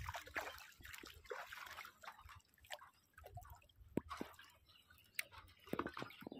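Water splashing and dripping off the mesh of a raised bamboo-framed fishing net into the river. There is a dense splash for the first couple of seconds, then scattered drips and a few sharp clicks.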